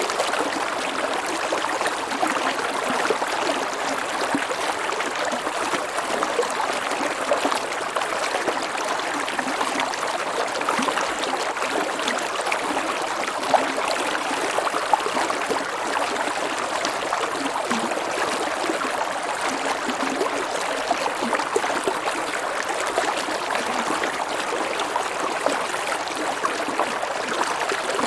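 A stream of water flowing steadily over a low waterfall, a continuous rushing and babbling with small splashes.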